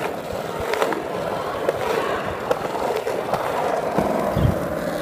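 Skateboard wheels rolling steadily on a smooth concrete floor, with sharp clicks about once a second. There is a low thump near the end.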